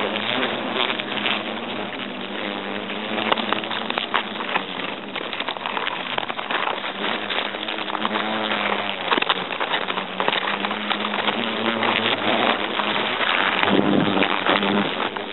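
European hornets buzzing in their nest, which is being destroyed with a white insecticide dust. A steady low drone runs throughout, with many small crackles over it.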